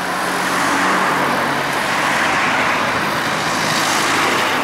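A car and then a small van driving past close by on a street: steady engine hum and tyre noise.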